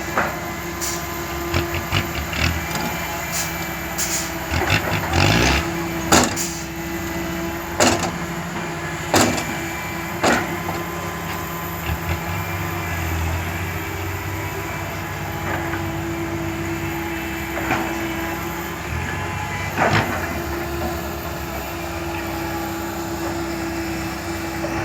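Heavy diesel construction machinery running steadily, with a held mechanical whine, broken by a series of sharp metallic clanks and knocks, most of them in the first half.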